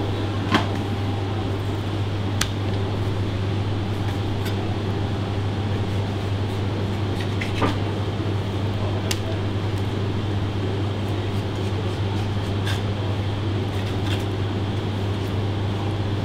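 Steady hum of kitchen ventilation, with a few light, sharp taps from a knife on a plastic cutting board as a flatfish is filleted.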